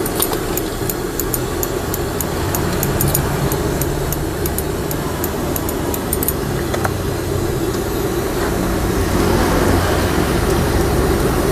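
Steel scissors snipping repeatedly, a few sharp clicks a second, as they cut fried tofu and omelette for tahu tek telor; the snipping stops about six seconds in. Behind it runs a steady rumble of street noise.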